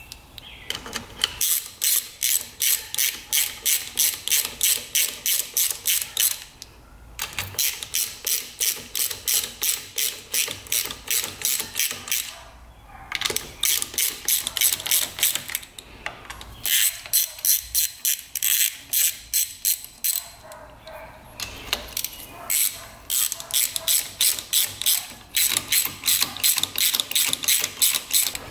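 Ratchet wrench clicking steadily, about four clicks a second, in long runs broken by a few short pauses, as bolts are run in.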